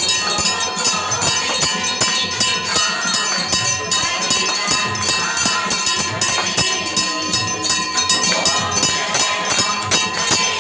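Temple bells ringing rapidly and continuously, many strikes a second, with a steady ringing tone underneath.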